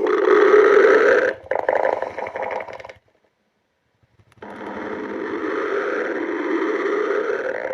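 A hungry person's stomach growling in long rumbling growls. One steady growl breaks up and fades out about three seconds in, and after a silent gap a second steady growl lasts about three seconds.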